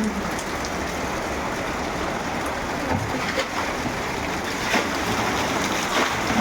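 Steady rushing water noise with a few sharp taps in the second half.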